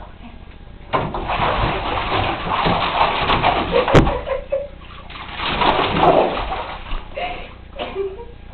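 Pit bull splashing about in shallow bathwater in a tub, the water churned in bursts, with one sharp knock about four seconds in.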